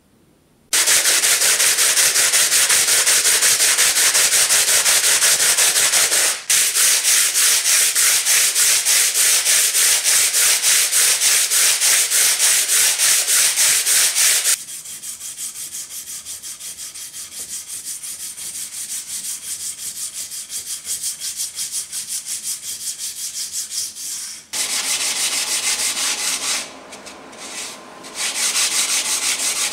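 A small chip of Okudo suita natural whetstone ground flat by hand into a finger stone: rapid back-and-forth rasping strokes on 120-grit sandpaper. After a quieter stretch, the strokes continue on a wet coarse sharpening stone near the end.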